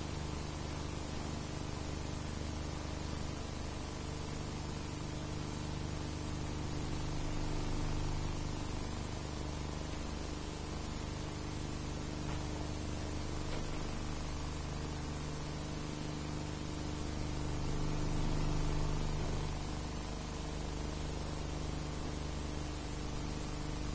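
Steady hiss and hum of an old recording's sound track, with no distinct event standing out.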